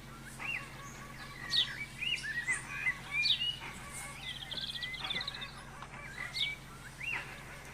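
Several songbirds singing and calling together: a chorus of short chirps and upslurred whistles, with a rapid trill about four seconds in.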